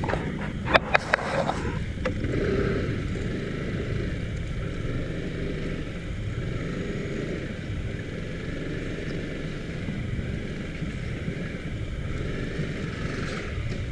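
Yamaha motor scooter running at low speed, a steady low rumble throughout. A few sharp knocks sound in the first two seconds.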